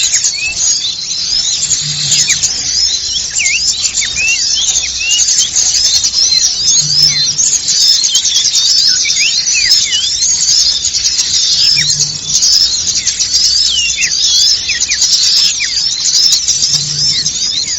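Dense chorus of many small songbirds chirping and twittering at once, with constant overlapping high, quick up-and-down notes: a recorded bird-trapping lure call.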